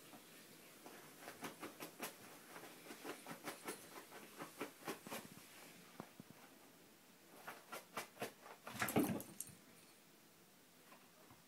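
Paper towel rustling and tearing as a Bengal cat claws and bites at the roll: a quick run of scratchy rustles for about six seconds, a short lull, then a second flurry with its loudest scrunch about nine seconds in.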